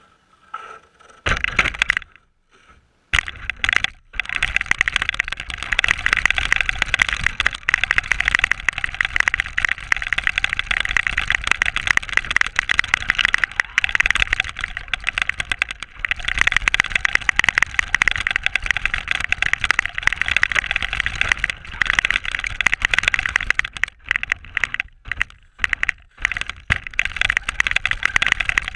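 Onboard sound of a Traxxas RC car driving through snow: a rushing noise of motor, drivetrain and tyres churning snow. It comes in a few short bursts of throttle at first, then runs steadily, with brief stops near the end.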